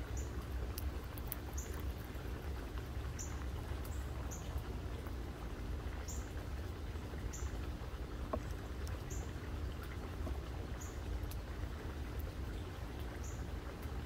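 A bird's short, thin, very high chip notes, repeated irregularly about once every second or two, with a few faint clicks, over a steady low outdoor rumble.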